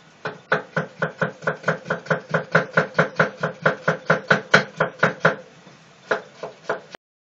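Kitchen knife chopping through cucumber onto a wooden cutting board in a fast, even rhythm of about five strokes a second, then a short pause and a few more chops.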